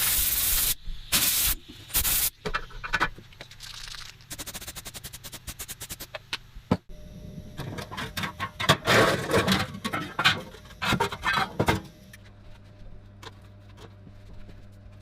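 Scraping and rubbing on metal in short bursts, with a fast run of clicks in the middle. From about twelve seconds in only a low steady hum remains.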